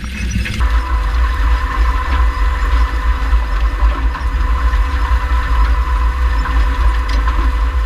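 Row-crop planter being pulled through no-till corn stalks, heard from a camera mounted on the machine: a steady low rumble and rattle of the row units, with a constant high whine that comes in about half a second in.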